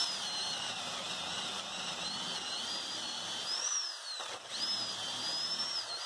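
A 14.4-volt cordless drill, running off a 20-volt lithium battery pack through an adapter, boring into oak with a 1-inch spade bit. The motor whine rises and falls in pitch as the bit bites and frees. It eases off briefly about four seconds in, then speeds up again.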